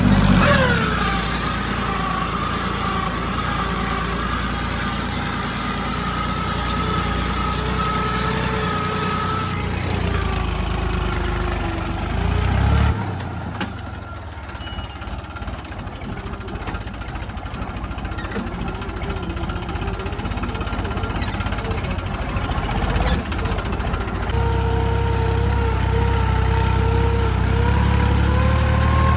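New Holland 3032 tractor's three-cylinder diesel engine working under load while pulling a nine-tine cultivator through the soil. Its pitch drops in the first second, holds steady, eases off for a moment a little before halfway, then climbs back and gets louder over the last few seconds.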